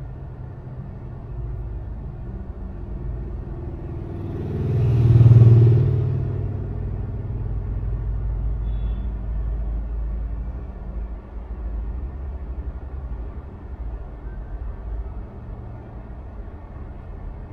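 Steady low rumble of passing traffic, with one vehicle going by, swelling and fading about five seconds in.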